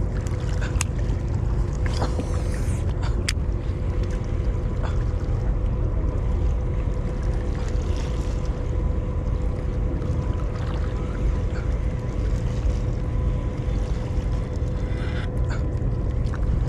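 Wind buffeting the microphone in a steady, fluttering low rumble, with a faint steady hum underneath and a few sharp clicks.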